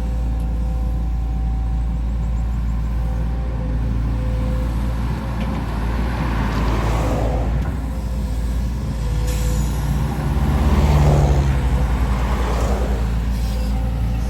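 Diesel engine of a Volvo EC210D excavator running steadily at work. Twice, about halfway through and again near the end, a long rushing noise swells and fades, and the engine grows louder around two-thirds of the way in.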